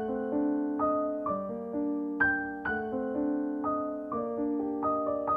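Background piano music: a gentle melody of single struck notes that ring and fade, a few notes a second.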